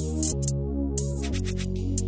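Electronic background music: held synth bass notes that change about every second, with crisp high percussion hits over them.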